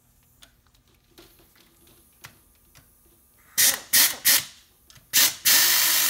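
A few light clicks as the starter's through bolts are set in by hand. Then a handheld power driver with a socket extension runs in short bursts, three quick ones and then a longer one near the end, spinning the bolts into the starter housing.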